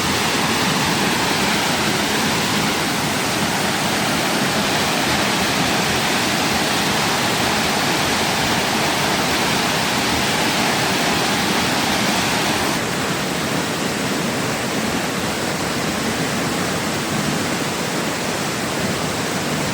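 Waterfall pouring into a jungle pool: a steady, dense rush of falling water that drops slightly in level about thirteen seconds in.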